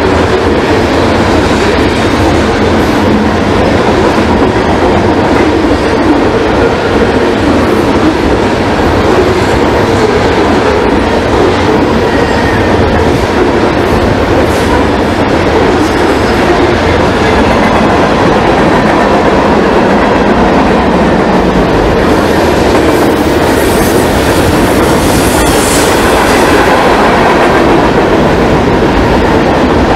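Norfolk Southern freight train rolling past on the near track: a loud, steady rumble of steel wheels on rail with clickety-clack over the rail joints as the cars go by. A high wheel squeal rises briefly about three-quarters of the way through.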